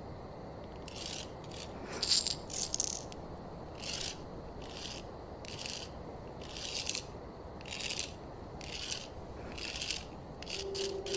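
Short, dry, hissy rattles repeating roughly once a second over a steady low rumble.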